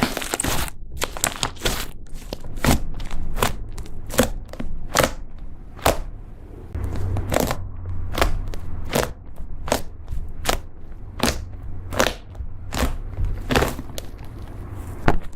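Slime being squeezed and worked by hand, making a string of sharp crackling pops, about one or two a second.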